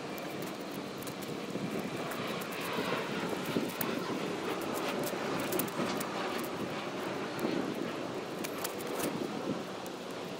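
A steady rushing noise that swells a little in the middle and eases near the end, with a few faint clicks.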